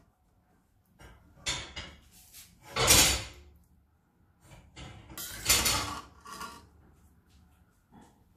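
A spatula scraping thick carrot halwa across an iron kadhai and scooping it into a steel container: about three scraping strokes, the loudest about three seconds in.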